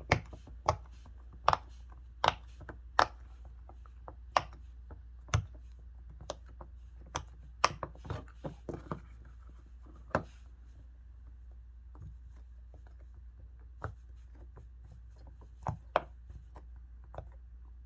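Silicone pop-it fidget toy having its bubbles pressed through one after another, each giving a short, sharp pop at an uneven pace, with a lull of a few seconds in the middle. The bubbles pop through easily.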